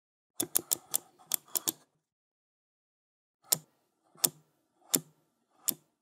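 Safe combination lock dial being turned, clicking. First comes a quick run of about seven clicks, then after a pause four slower, evenly spaced clicks.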